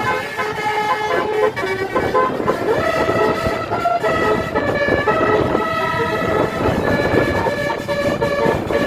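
Indonesian tour bus 'telolet basuri' musical air horn playing a tune: several horn tones sound together and step from note to note, over a rough background of traffic noise.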